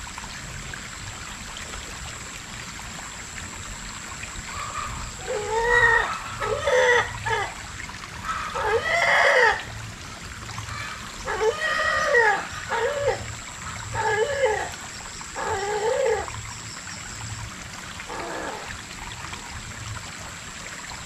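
Shallow stream trickling steadily, with an animal giving a string of about eight short calls, each rising then falling in pitch, through the middle.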